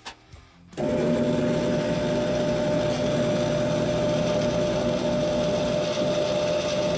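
Drill press starting about a second in and running steadily, its bit cutting into a steel hex nut on a threaded rod. A constant motor tone runs through the sound.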